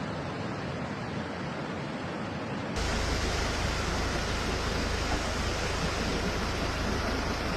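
Fast-flowing floodwater rushing, a steady noise that jumps louder and deeper about three seconds in as the footage changes.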